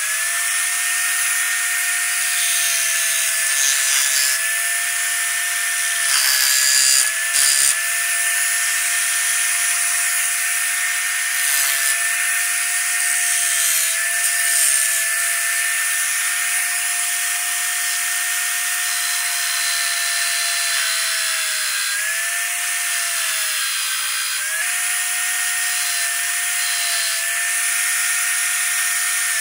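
Electric drill, clamped in a jig as a makeshift wood lathe, running at steady speed with a high whine, while a hand chisel scrapes and cuts the spinning wooden wheel. The motor pitch sags for a couple of seconds about three-quarters of the way through, then recovers, as the tool bites.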